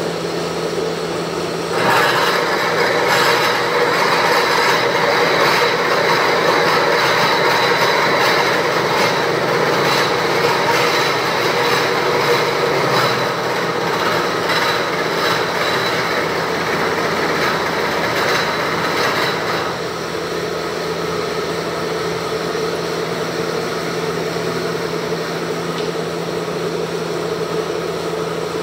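Milling machine running with a steady hum. From about two seconds in until about twenty seconds in, a louder, gritty cutting noise with a faint high ringing tone joins it as the cutter works on a metal casting, then only the machine's hum is left.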